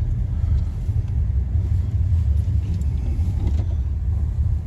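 Truck engine running under load as the truck pushes on through snow, a steady low rumble.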